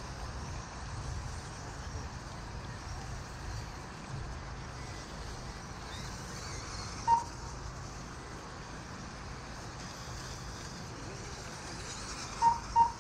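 Short electronic beeps from an RC race lap-timing system, one about seven seconds in and two in quick succession near the end, as buggies cross the timing loop. Under them runs a steady low rumble.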